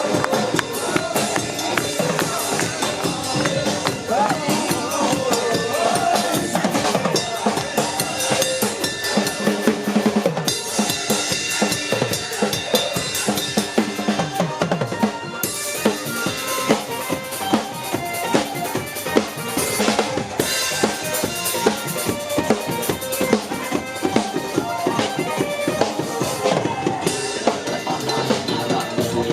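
Music driven by a drum-kit beat, with kick, snare and rimshot hits repeating evenly throughout and a melody over it in the first part.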